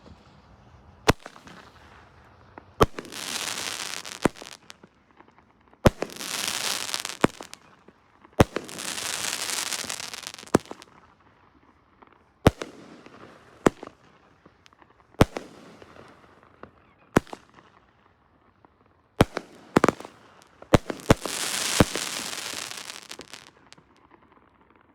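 Consumer firework cake (Krypton Rising, 350 g) firing its shots one by one, each a sharp bang about every second or two. Several bangs trail into a crackle lasting a second or two, and a quick run of bangs comes near the end.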